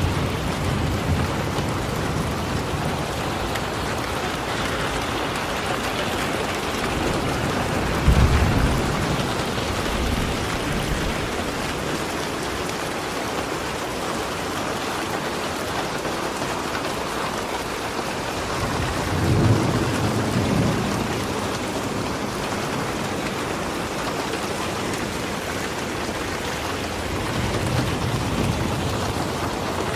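Steady rainfall, with low rumbles of thunder about eight seconds in and again around twenty seconds.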